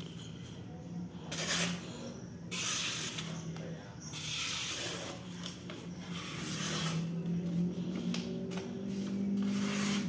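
A sheet of paper being sliced by a sharp 5-inch JOIL utility knife in a sharpness test, several swishing cuts up to a second and a half long each.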